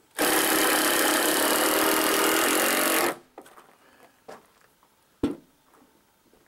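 A power tool runs at a steady speed for about three seconds, starting and stopping abruptly. It is followed by a few faint ticks and one sharp knock.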